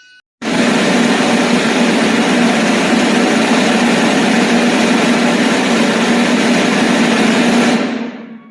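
A loud, steady rushing noise with a low hum running through it. It starts abruptly about half a second in and fades away near the end.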